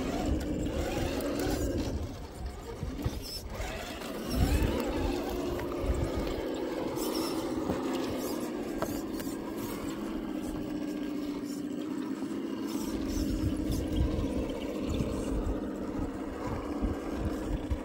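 Radio-controlled scale crawler's electric motor and geared drivetrain whining as it crawls slowly over logs and rocks, the pitch dipping and rising with the throttle about four seconds in, with knocks and scrapes of the tyres and chassis on the wood.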